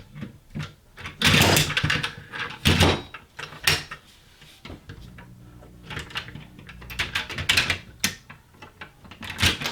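Diecast metal toy cars knocking, clattering and scraping against each other and the surface they are pushed across, with a few longer scrapes among sharp clicks.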